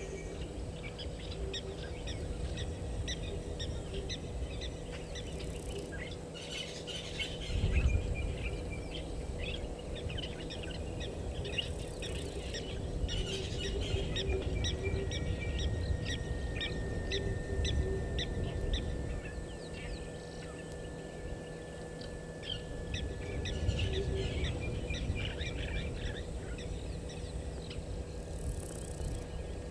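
Many wild birds chirping and calling throughout, one holding a long thin whistle for several seconds in the middle, over a steady low rumble that swells briefly about eight seconds in.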